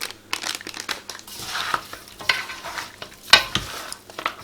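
Raw mutton chops being coated with masala powder in a bowl: irregular wet squishing and rustling strokes, with sharper ones about two seconds and three and a half seconds in.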